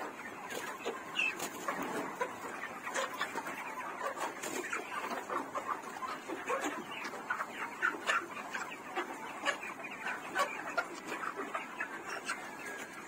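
Poultry flock clucking, with many short calls overlapping continuously.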